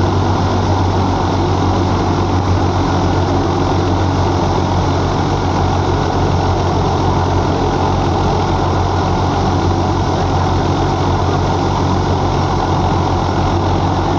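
Belarus 510 tractor engine running steadily under load, driving a wheat thresher through its PTO shaft, with the thresher's drum running. It makes a constant low throb and a dense rushing noise, with no change in pace.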